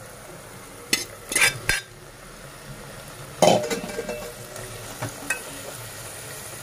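Raw marinated chicken sizzling in hot masala in a pressure-cooker pot, while a steel ladle stirs it and scrapes and knocks against the pot. A few clatters come about a second in, and the loudest scrape comes at about three and a half seconds.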